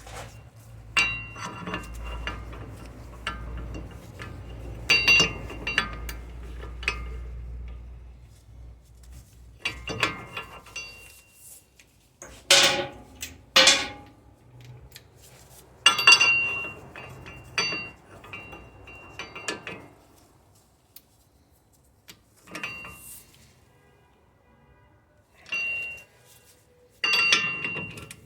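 Metal hand tools and car parts clinking and clanking against each other in irregular bursts, with several sharp ringing metallic knocks. A low steady hum sits under the first ten seconds or so.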